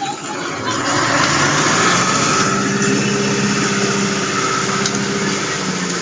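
Concrete mixer truck's diesel engine running at raised revs to turn the drum while it discharges concrete down the chute, with a steady rushing noise over it. The engine note climbs during the first couple of seconds, then holds steady.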